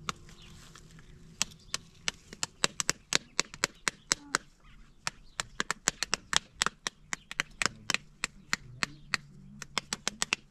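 Sharp knocks in quick, irregular succession, up to about five a second, like repeated chopping blows.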